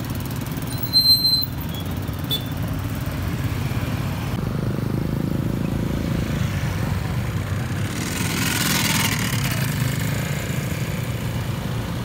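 Motor scooters and small motorcycles riding past at low speed, engines running steadily, with one passing close and louder near the end. About a second in there is a brief shrill beep, the loudest sound.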